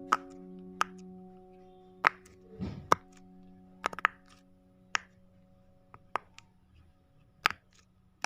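Sharp, irregular pops and clicks from a fidget toy being played with, roughly one a second, over a held musical chord that slowly fades.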